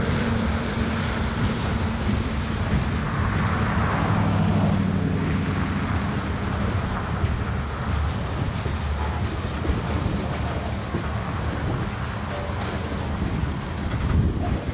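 Freight cars (covered hoppers and a tank car) rolling past, a steady noise of steel wheels on rail with a low hum in the first few seconds and occasional clicks.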